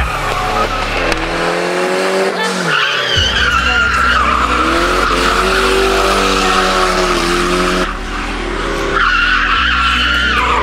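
A car drifting: its engine revs rise and fall repeatedly as the rear tyres squeal in long, wavering screeches while the car slides sideways.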